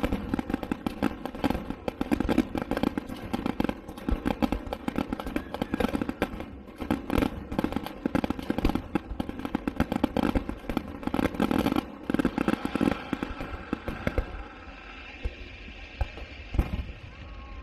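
Fireworks show: a dense barrage of crackles and pops over a steady hum with several tones, the barrage thinning out after about fourteen seconds.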